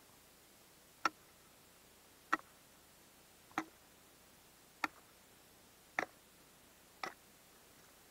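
Six sharp knocks, about one every second and a quarter, of a tool striking thin first ice on a lake to test it before walking out.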